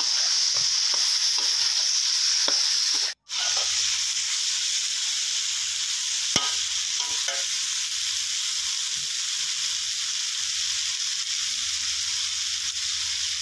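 Sliced pork belly stir-frying in a wok with its seasonings, sizzling steadily while a spatula stirs and scrapes it. The sound drops out for a split second about three seconds in, and there is one sharp tap a little past six seconds.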